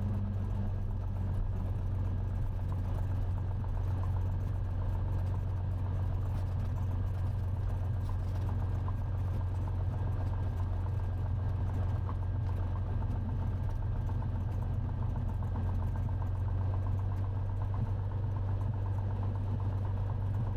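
Cessna 182T's Lycoming IO-540 six-cylinder engine running at low taxi power, a steady, even drone.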